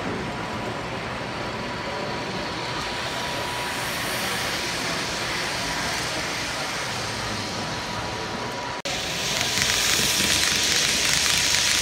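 N scale model train running past at close range: a steady rolling hiss of small metal wheels on the rails, with a faint thin whine. After a brief break about nine seconds in it comes back louder and brighter as the passenger cars pass right by.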